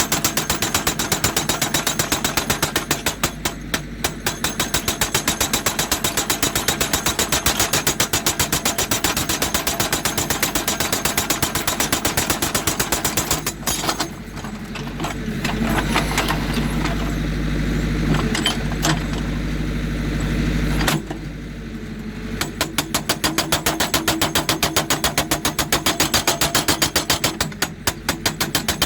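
Hydraulic rock breaker on a JCB 3D backhoe loader hammering rock in a rapid, even rhythm. It stops about halfway through, leaving the diesel engine running for several seconds, then starts hammering again.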